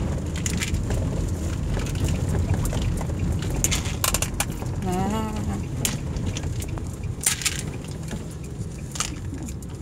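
Steady low rumble inside a car, with a few sharp clicks of a plastic Play-Doh tub being turned in small hands.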